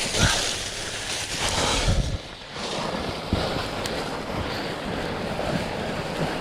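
Continuous rustling and crunching of footsteps moving through dry leaf litter and brush, with faint irregular knocks underneath.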